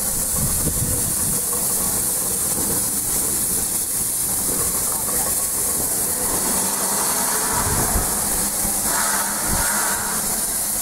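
Dubs 0-4-0 crane tank steam locomotive 4101 working slowly along the track with a steady hiss of steam and a few low knocks. A short, louder rush of steam comes near the end.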